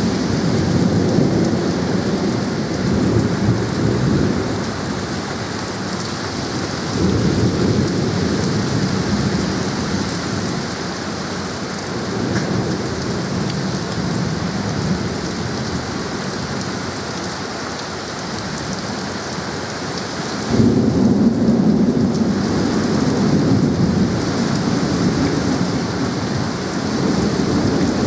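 Heavy rain pouring down, a dense steady hiss with a deeper rushing body, growing suddenly louder about seven seconds in and again, more strongly, about twenty seconds in.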